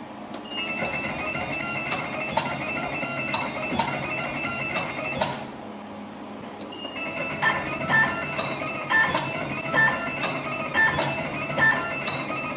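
Wire stripping and twisting machine running after being started. A steady high motor whine lasts about five seconds and stops briefly. The machine then settles into a repeating cycle of sharp clicks with short pitched chirps, about two a second, as it works through the wires.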